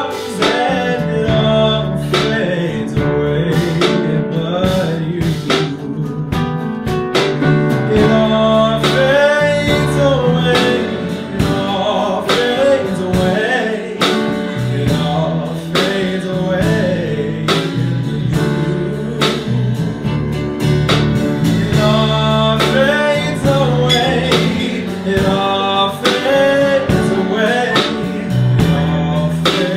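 Male voice singing a sustained, gliding melody with a live band: electric guitar, piano, bass guitar and a drum kit keeping a steady beat.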